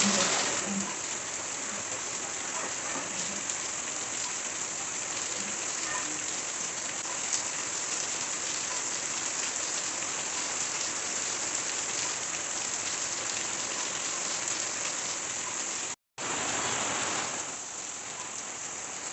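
Heavy rain falling steadily, an even dense hiss. It cuts out for a split second near the end and comes straight back.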